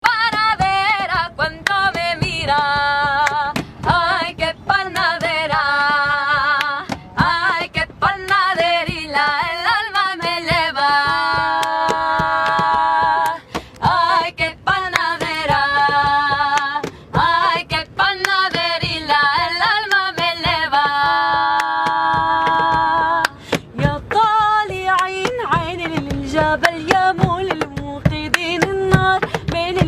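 Young women singing a traditional folk song with long held, wavering notes, over a steady rhythm of sharp hand beats.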